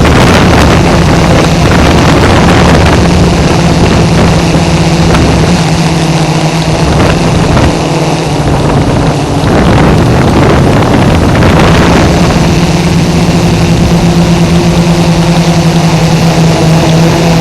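F550 hexacopter's electric motors and propellers buzzing steadily and loudly, with rushing air over it. The tone thins and dips briefly about halfway through, then steadies again.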